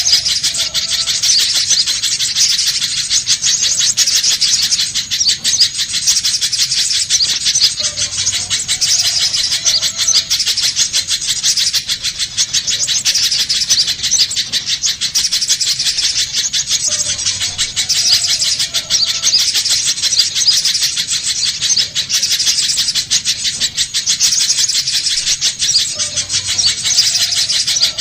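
Little spiderhunter calling: a very fast, unbroken series of sharp, high chips that runs on without a pause.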